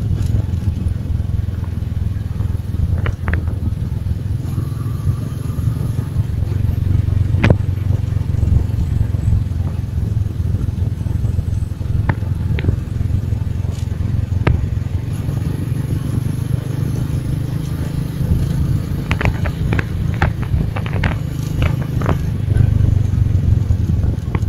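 Motorcycle riding at road speed, a steady low rumble of engine and road noise. Scattered sharp clicks come through it, most in a cluster about three-quarters of the way through.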